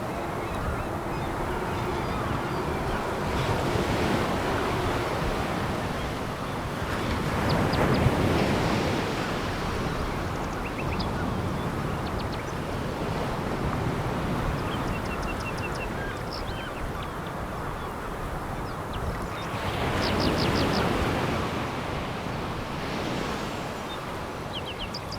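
Sea waves breaking and washing on a pebble beach, in a steady rushing wash that swells with a larger wave about 8 seconds in and again about 20 seconds in. Faint, short high clicks come and go.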